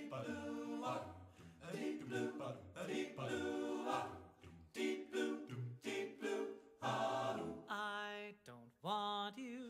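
A cappella vocal group singing in layered harmony, with no clear lyrics, and a rising vocal slide near the end.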